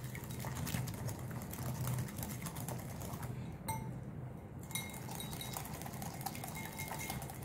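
Wire whisk beating thick hung curd in a glass bowl: fast, faint clicking and scraping of the wire against the glass, with a break of about a second around the middle. The curd is being beaten smooth for shrikhand.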